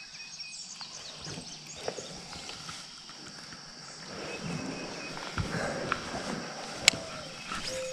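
Steady high-pitched drone of insects along a wooded creek, with scattered small clicks and knocks of fishing gear being handled and one sharp click about seven seconds in.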